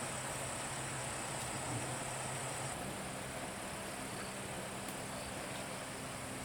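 Steady high-pitched insect buzz with an even outdoor hiss, and a faint low hum underneath that changes pitch about three seconds in.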